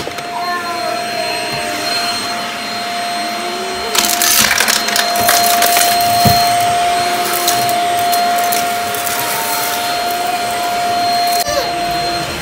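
Stick vacuum cleaner running with a steady motor whine. From about four seconds in it sucks up crunchy debris that crackles and rattles through the tube, easing off shortly before the end.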